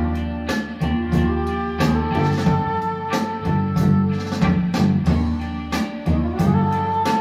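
Instrumental funk track played back through Linn 360 loudspeakers and heard in the room: a steady drum beat under a strong bass line, with held melody notes above. One line slides up in pitch near the end.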